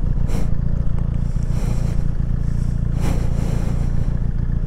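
Benelli 302R's 300 cc parallel-twin engine idling steadily while the bike stands, with a few brief rushes of noise over it.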